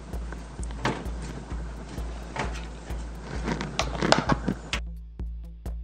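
Background music with a steady beat of about two thumps a second, over a few sharp clicks and knocks from a metal PC case being handled and fastened, clustered near the end. The room sound cuts off suddenly just before the end, leaving only the music.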